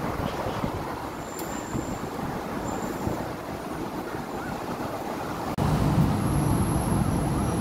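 Steady roadside traffic noise, stepping up abruptly about five and a half seconds in.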